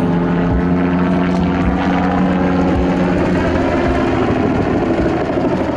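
Bell 206B-3 JetRanger III helicopter flying a display pass: a steady engine tone under the low beat of its two-bladed main rotor.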